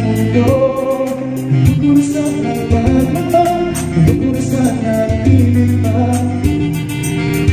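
A Tagalog karaoke song playing from a Karavision Pro KP-8800 karaoke player: a sung melody over a backing track with bass and a steady beat.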